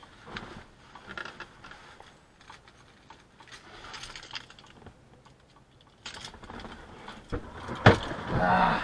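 Scattered small clicks and rustling, then one sharp, loud knock near the end followed by a brief low tone.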